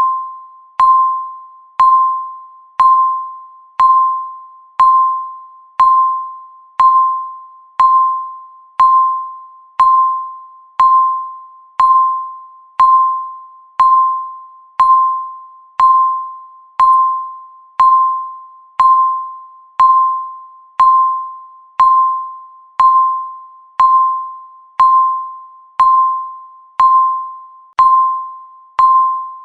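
Countdown timer beeping once a second: a short electronic tone that fades away after each strike, repeating steadily.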